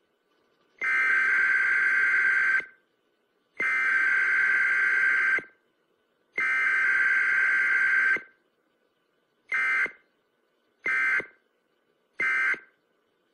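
Electronic alarm buzzer tone at one steady pitch, sounding three long blasts of nearly two seconds each, then three short blasts in quick succession.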